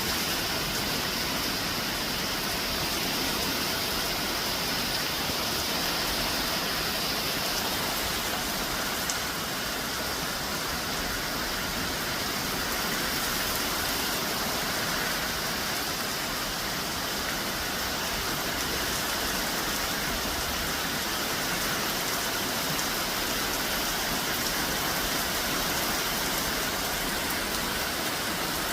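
Steady heavy rain falling and pattering on surfaces, an even hiss with no let-up.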